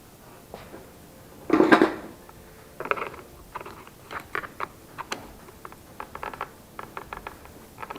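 Clicks and knocks of plastic and metal parts of a cordless chainsaw being handled: a louder scraping rattle about one and a half seconds in, then a run of small sharp clicks.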